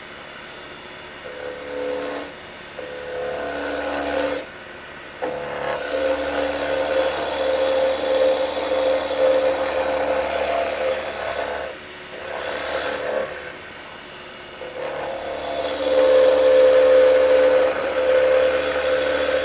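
Roughing gouge cutting a spinning wooden spindle blank on a wood lathe: a rough scraping cut in several passes over the lathe's steady hum, broken by short pauses about four seconds in and again past the middle. The cutting is loudest a few seconds before the end.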